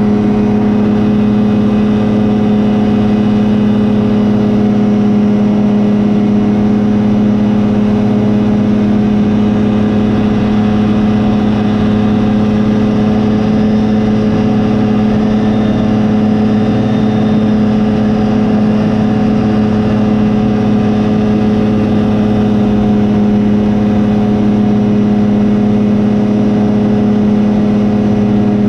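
Rotax 503 DCDI two-cylinder two-stroke engine of a Phantom X1 ultralight running loud and steady at a constant pitch.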